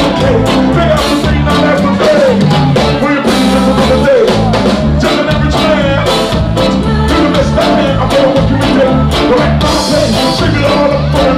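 Live ska band playing: a male lead vocal over drums, bass, guitar, keyboard and saxophone, with a steady beat.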